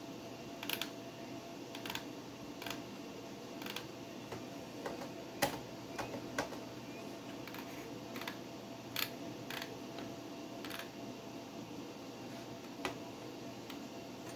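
Old desktop PC running with a steady fan hum, broken by about a dozen sharp, irregularly spaced clicks, the loudest about five and a half seconds in.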